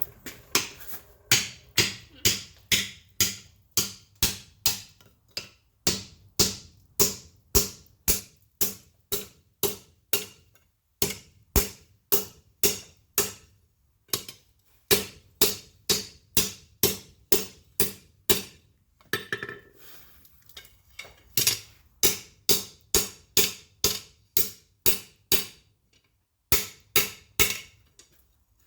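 Hammer blows on an anvil flattening a wrought iron bar: steady ringing strikes at about two a second, in runs of blows with a few short pauses between them.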